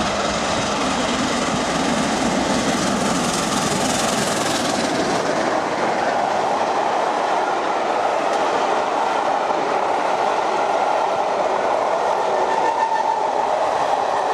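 Peppercorn A1 class three-cylinder Pacific steam locomotive 60163 Tornado passing through a station at speed with its train. The locomotive goes by in the first five seconds or so, and then its coaches roll past steadily.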